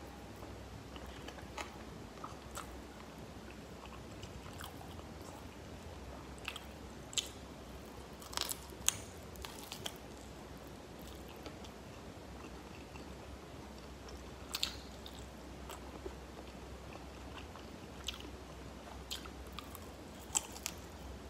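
Close-up eating of fried chicken wings: biting and chewing with scattered sharp crackles. There is a cluster of louder bites about a third of the way in and another about two-thirds in, over a faint steady low hum.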